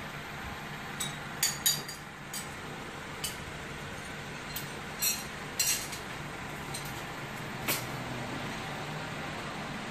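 Repair-shop background: a steady low hum with about eight short, sharp clicks and clinks scattered through it.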